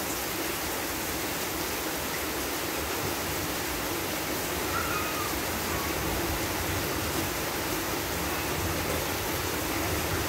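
Heavy rain pouring steadily, an even dense hiss.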